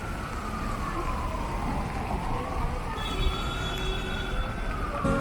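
Emergency vehicle siren wailing: one slow tone that falls, rises over about two seconds and falls again, over steady street traffic noise.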